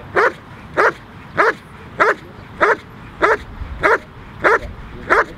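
A dog barking steadily and rhythmically at a protection helper, about one and a half barks a second, all evenly spaced and equally loud: the hold-and-bark of IGP protection work, where the dog holds the helper at bay by barking without biting.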